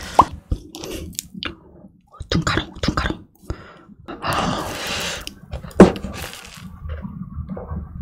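Close-miked ASMR eating and handling sounds of a blue cream-filled macaron: scattered small clicks and mouth sounds, a rustling crunch of the shell about four seconds in, and one sharp click near six seconds.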